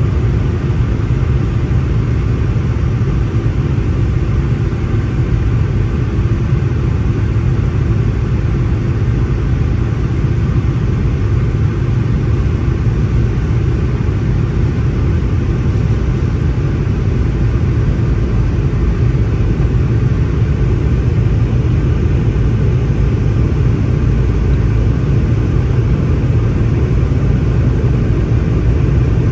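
Boeing 717 airliner's rear-mounted Rolls-Royce BR715 turbofans and airflow making a loud, steady low rumble, with a faint hum that fades away over the first half.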